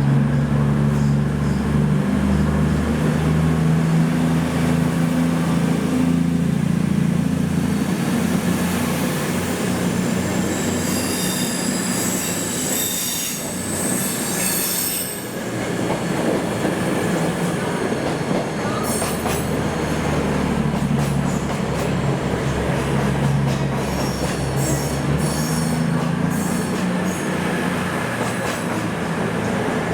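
A train moving through the station: a steady low hum with the wheels squealing high-pitched on the rails, once for a few seconds near the middle and again through much of the second half.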